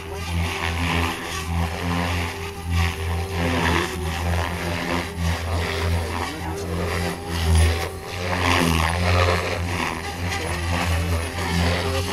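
OMP Hobby M4 electric RC helicopter flying hard 3D manoeuvres: a low rotor drone with a motor whine, swelling and dropping in loudness every second or so as the blade pitch and head speed change.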